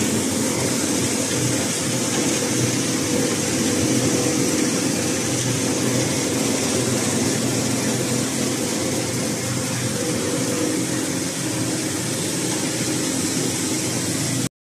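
6N70 vibrator mini rice mill running steadily while milling rice: a constant machine hum with a dense hiss of grain over the vibrating sieve.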